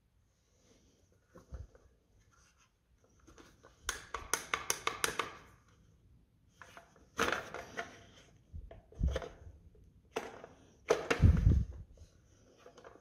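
Hard plastic clicking, rattling and knocking as a clear anti-theft keeper box and a handheld Alpha S3 detacher are handled and fitted together. A quick run of clicks about four seconds in, and a heavier knock near the end.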